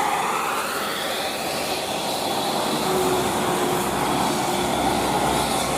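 A large bus driving past, a steady roar of engine and tyre noise whose pitch rises over the first couple of seconds.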